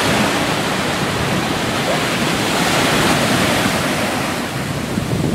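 Ocean surf: waves breaking and foam washing up the sand in a steady rush.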